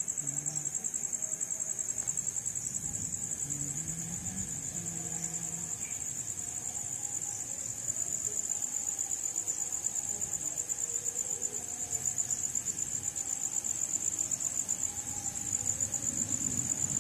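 Crickets chirring in a continuous high-pitched trill with a fast, even pulse.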